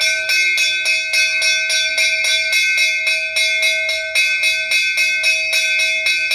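Temple bell rung rapidly and evenly, about five or six strikes a second, its ringing tone held without a break.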